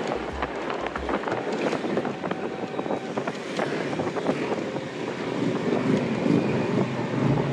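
Wind buffeting the microphone of a camera riding on a moving motor scooter, over the scooter's running and road noise, with a crackling, uneven rush.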